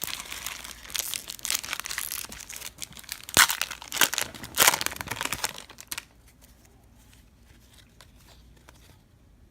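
A trading-card pack wrapper crinkling and being torn open, with two sharp louder rips about three and a half and four and a half seconds in; the crinkling stops about six seconds in.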